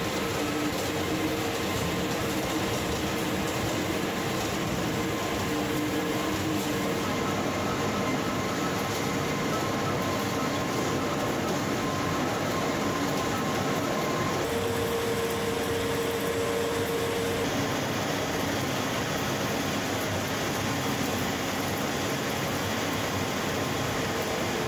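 Steel coil slitting line running: a steady mechanical din of the uncoiler, feed rollers and rotary slitter knives as steel sheet unwinds and is cut into strips, with faint steady hums and one hum growing stronger for a few seconds midway.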